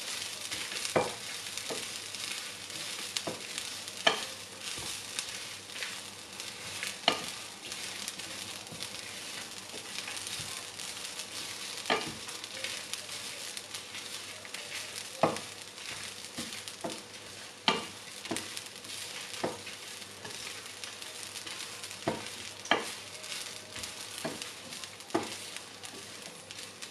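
Wooden spoon stirring grated coconut, dried red chillies and whole spices as they roast in a pan: a steady light hiss of the roasting mix, broken by sharp knocks of the spoon against the pan every few seconds. The mix is being roasted until lightly golden.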